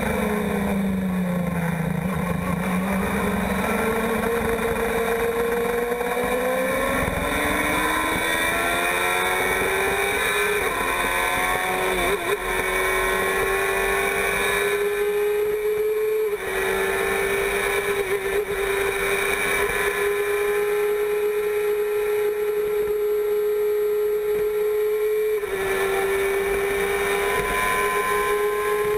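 Formula 1000 race car's 1000 cc motorcycle-derived engine heard onboard at high revs. Its pitch dips briefly as the car slows for a corner, then climbs steadily as it accelerates up through the gears. It then holds high near 12,000 rpm, with two quick dips at upshifts, one about halfway and one near the end.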